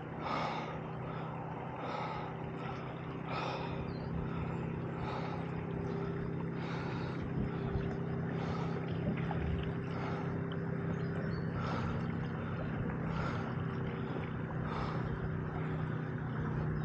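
A boat motor runs steadily with an even low hum. A soft swishing noise rises over it about every second and a half.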